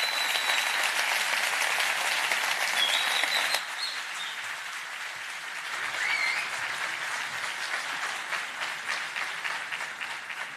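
Audience applauding at the end of a talk, loudest for the first few seconds, then easing slightly and swelling again about halfway through, with a few brief high tones over the clapping.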